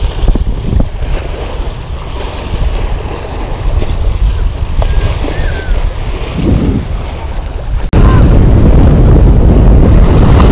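Sea waves washing against a rock breakwater, with wind buffeting the microphone. About eight seconds in, the wind rumble suddenly gets much louder.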